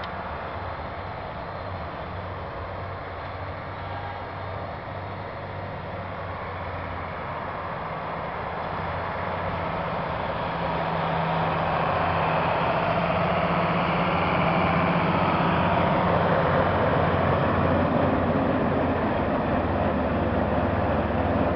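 International Harvester 1586 tractor's six-cylinder diesel running steadily under load, driving a nine-foot dual-fan front-mounted snowblower. The engine drone is joined by the rush of the blower throwing snow, and both grow louder from about halfway through as the machine comes closer.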